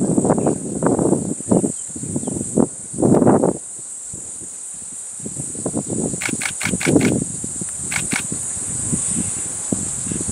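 Steady high-pitched chorus of crickets, with a rapid burst of about five camera shutter clicks about six seconds in and two more around eight seconds. Low muffled rumbling noise comes and goes underneath and is loudest in the first few seconds.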